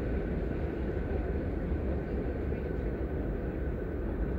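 Wind buffeting the microphone, a steady fluttering low rumble with no crossing bell sounding.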